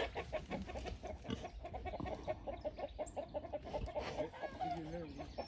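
Chickens clucking: a fairly quiet run of short, quick clucks, several a second.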